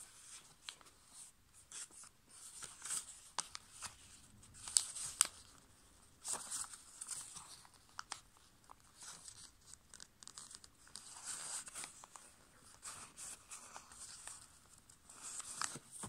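A sheet of A/5 copy paper being folded and creased by hand: intermittent dry rustling and scraping of paper against paper and fingers, with two sharp ticks about five seconds in.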